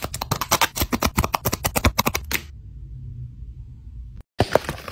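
Rapid small clicks and crinkles from tweezers picking at a glossy sticker sheet, several ticks a second. They stop about two and a half seconds in, and a few more clicks come near the end.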